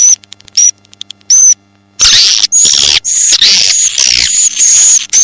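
Swiftlet lure-call recording: short buzzy calls held on one high pitch, a quick run of clicks about a second in, then from about two seconds in a dense stream of overlapping chirps with falling sweeps, like a swiftlet colony.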